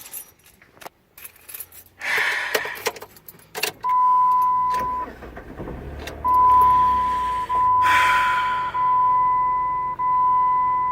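Keys jangling and clicking, then a car's warning beeper: one steady high beep about a second long, followed by a run of beeps each about a second long with only tiny gaps between them.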